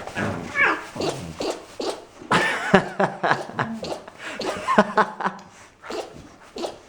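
Cat sneezing over and over in a rapid series of short bursts.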